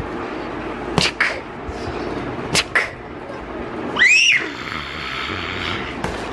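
A few light taps, then about four seconds in a short, loud, high-pitched squeal that rises and falls.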